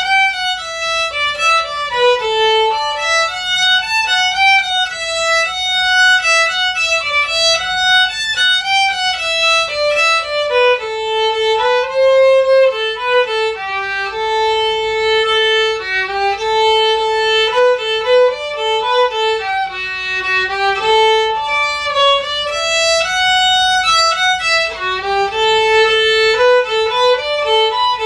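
Fiddle playing a lively folk dance tune: a single melody line of quick bowed notes, with stretches of longer held notes in the middle.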